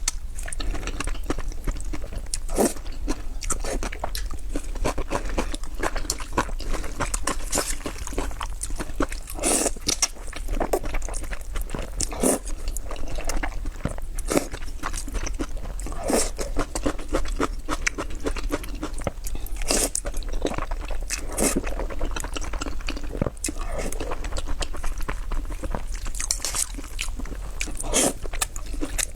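Close-miked chewing and crunching while eating kimchi noodles: irregular wet crackles and clicks from the mouth, with a louder crunch every few seconds.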